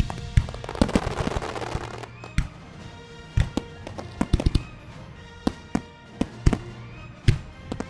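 Fireworks shells bursting in about a dozen sharp, irregularly spaced bangs, with a spell of crackle during the first two seconds, over music from the show's soundtrack.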